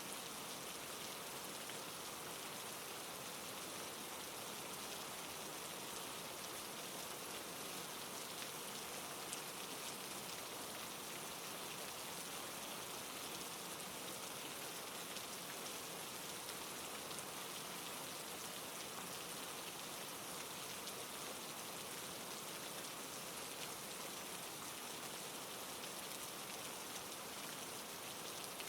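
Steady rain falling, a constant even hiss of drops with no thunder.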